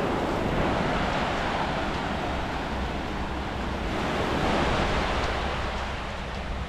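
Small waves washing onto a sandy beach, the wash swelling again about four seconds in, with a low rumble of wind on the microphone.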